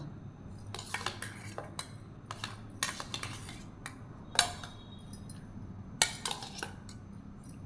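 A spoon clinking and scraping against a plate while chopped tomato is spooned onto mashed potato: a scatter of light taps, with two sharper clinks about four and six seconds in.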